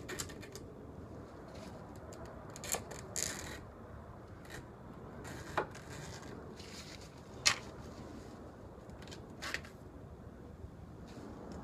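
Knife blade trimming excess wire mesh screen along the frame: scattered sharp ticks and short scrapes, about half a dozen, over a steady low background hiss.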